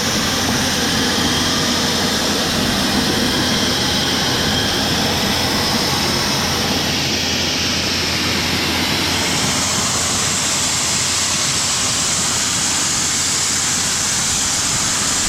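Grain auger running, with shelled corn pouring into a grain bin onto a spinning gravity spreader: a loud, steady rushing noise.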